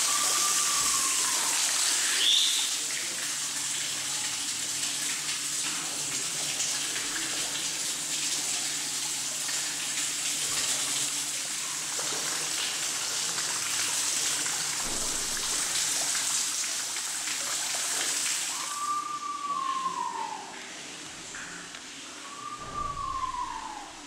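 Steady splashing of water running down an artificial rock waterfall, which stops about 19 seconds in. Over it a bird gives a clear whistle that falls in pitch: once near the start and twice near the end, with a short high note about two seconds in.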